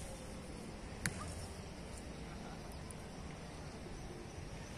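Steady outdoor background noise, mostly low rumble, with a single sharp click about a second in.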